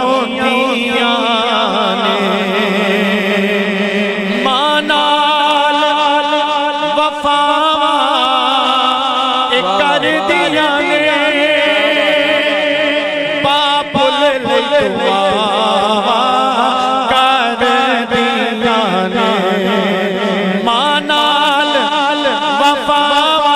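A man singing a Punjabi devotional kalam solo into a microphone, with long held notes that waver and bend in melismatic ornaments.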